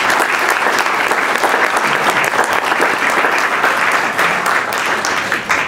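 Audience applauding steadily, then dropping off at the very end.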